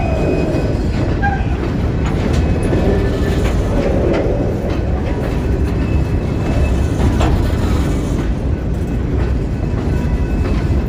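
Empty open-top hopper cars of a stone train rolling past over a switch: a steady low rumble of steel wheels on rail, with a few sharp clanks from the wheels and couplers. The loudest clank comes about seven seconds in.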